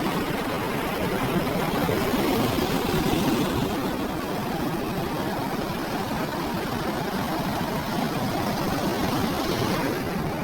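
Ocean waves breaking and washing onto a beach: a continuous rushing surf noise, slightly louder about two to three seconds in.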